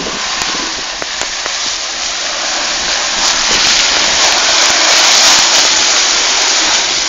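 A 4x4 off-road vehicle driving through mud and water, a rushing, splashing noise that grows louder as it comes closer, peaking about five seconds in.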